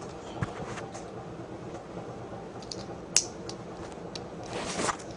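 Small clicks and taps as Beyblade parts are handled and fitted together. The sharpest click comes about three seconds in, followed by a brief rustle near the end.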